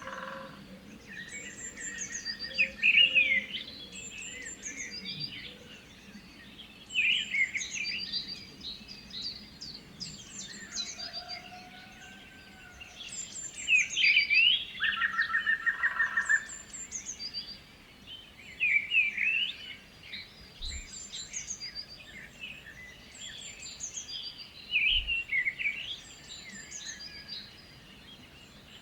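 Several songbirds singing together, one repeating a loud, bright, warbling phrase every four or five seconds. Softer chirps and a couple of short buzzy trills come in between.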